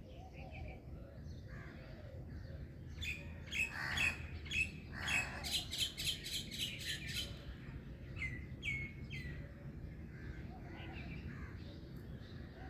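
Songbirds chirping, with a flurry of sharp chirps about three seconds in that includes a quick run of rapid repeated notes, then a few falling chirps, over a steady low background rumble.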